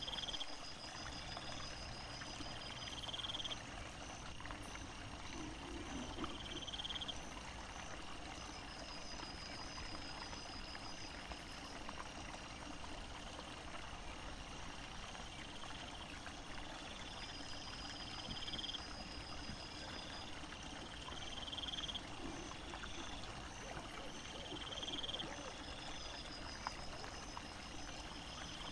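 Steady rush of a small woodland stream, with a high, pulsed chirping call that recurs every few seconds.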